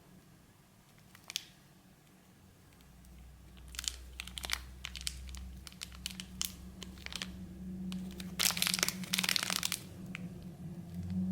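A bubble-gum wrapper being crinkled and torn open: scattered crackles, then a dense burst of crinkling near the end.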